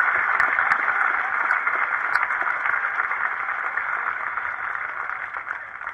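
Crowd applause, the clapping steadily dying away.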